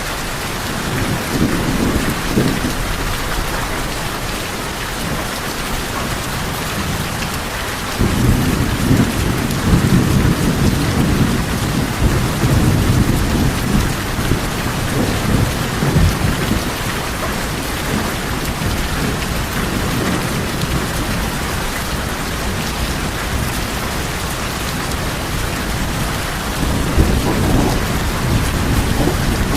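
Steady heavy rain falling on tin roofs, with rolling thunder. A low rumble comes in suddenly about eight seconds in and rolls on for several seconds, and another rumble comes near the end.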